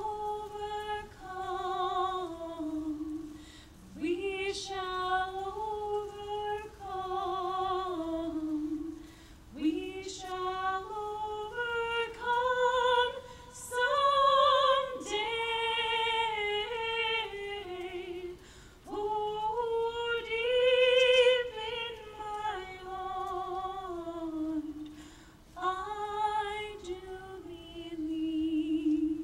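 A woman singing a slow melody solo, in phrases of a few seconds each with short breaks between them.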